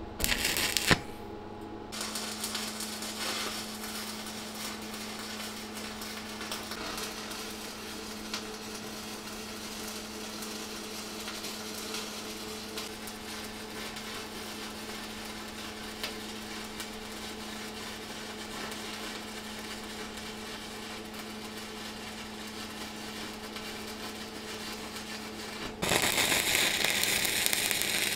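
Manual stick-welding arc crackling and sizzling steadily as an LB52U 2.6 mm electrode burns at about 60 amps, over a steady low hum. There is a brief loud burst in the first second, and the crackle grows much louder near the end.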